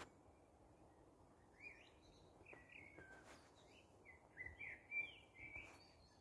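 A small songbird chirping and twittering faintly, with quick rising and falling notes that come thickest and loudest in the second half.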